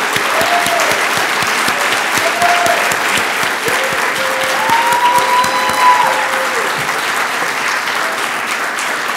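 Audience of many people applauding, dense steady clapping throughout.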